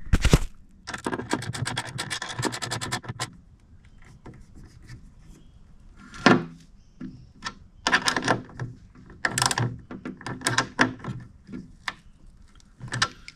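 Ratcheting combination wrench clicking as it tightens the bolts on the BMS battery-cable terminals: a fast, even run of ratchet clicks in the first few seconds, then shorter bursts of clicks and taps as the wrench is worked and repositioned.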